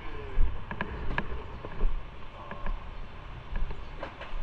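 Motorcycle ride: an uneven low rumble with scattered sharp clicks and rattles.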